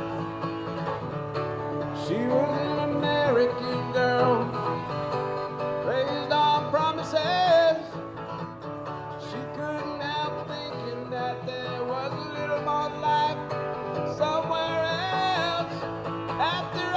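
Acoustic bluegrass-style music: guitar and banjo picking under a sliding melody line.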